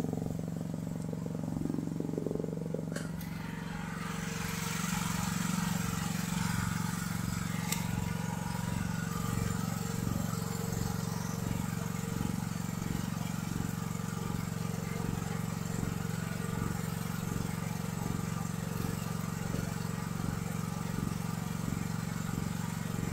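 Small single-cylinder air-cooled gasoline engine of a mini excavator idling steadily at a high idle even with the throttle at its lowest setting: the throttle cable is fouling the throttle lever so the engine cannot idle down.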